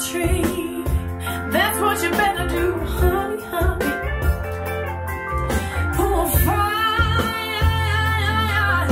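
A soul-blues song with guitar, a wavering held vocal line and deep bass, played back through Canton Reference 1.2 DC floorstanding loudspeakers and a Canton subwoofer and heard in the room.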